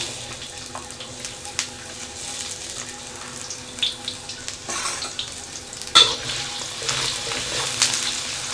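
Crushed garlic and sliced onion sizzling in hot oil in a wok, with a spatula scraping against the pan a few times as they are stirred.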